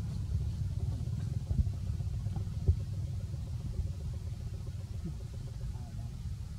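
Low, steady rumble with two brief knocks, one about a second and a half in and one near the three-second mark.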